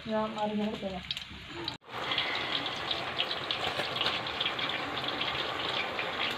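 Banana slices deep-frying in hot oil in a pot: a steady sizzle with fine crackling from about two seconds in, as fresh raw slices are dropped in.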